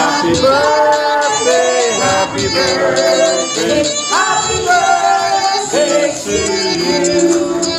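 Background music: an upbeat song with a sung melody over a steady beat.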